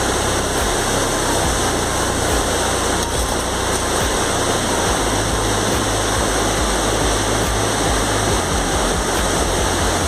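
Steady rush of white water tumbling over rocks in a river rapid.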